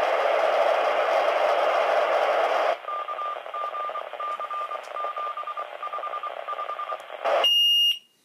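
Minitor V fire pager's speaker hissing with loud radio static after a dispatch, then quieter static with a row of short beeps. Near the end comes one steady high-pitched beep of about half a second, and the sound cuts off.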